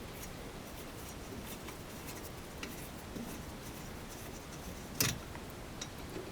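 Faint metallic clicks and rubbing of a spanner turning out a brake caliper guide-pin bolt, with one sharper metal clank about five seconds in.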